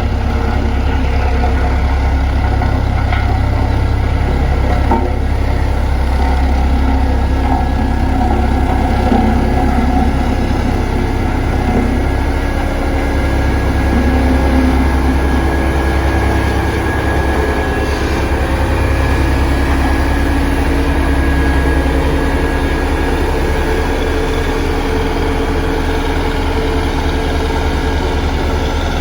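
Road roller's diesel engine running steadily with a deep low throb.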